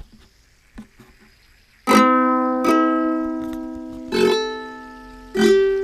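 Ukulele strings struck by a spinning fidget spinner, giving four loud strums of a chord that each ring on and fade. They start about two seconds in, after a few faint handling clicks, and the later strums open with a quick rattle of strikes.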